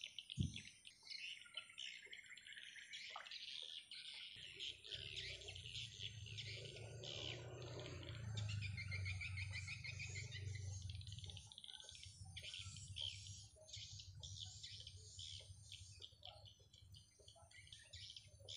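Small birds chirping and twittering continuously in quick, short calls. A low rumble runs under them from about four seconds in until about eleven seconds.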